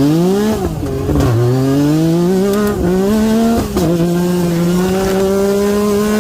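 Four-wheeler (ATV) engine accelerating hard. Its pitch climbs and drops back at each gear change, about four times, then holds steady at speed for the last couple of seconds.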